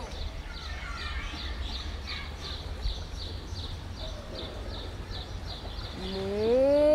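A steady droning tone sags downward in pitch and dies away at the start. A quieter stretch follows: low rumble, a few faint chirps and a soft, regular high ticking. About a second before the end the tone returns, gliding up in pitch and settling back into a loud, steady drone.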